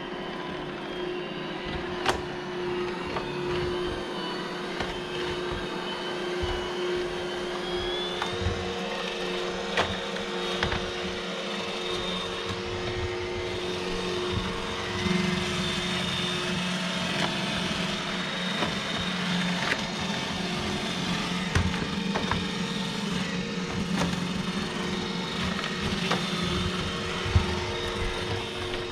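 iRobot Roomba j7 robot vacuum running: a steady motor and brush hum with whining tones that come and go, and a few sharp knocks.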